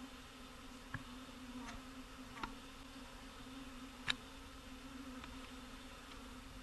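Swarm of bees buzzing with a steady hum, with three short sharp ticks about one, two and a half and four seconds in.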